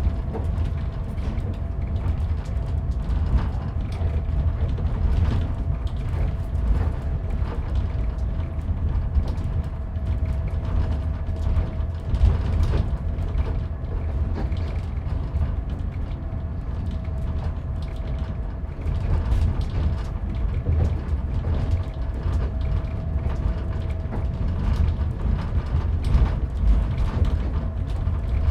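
Inside a moving train carriage: a steady low rumble with many small rattles and creaks from the car, and a faint steady tone running through it.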